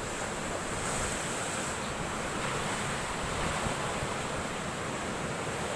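Large, rough sea waves breaking on the shore: a steady, unbroken wash of surf.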